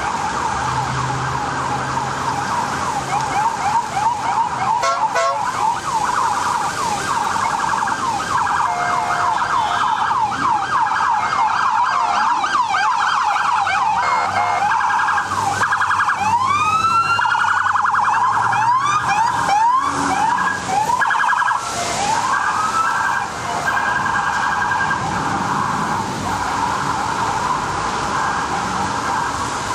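Several NYPD police vehicle sirens sounding at once in a fast, rapidly repeating yelp. A few rising whoops come in a little past halfway.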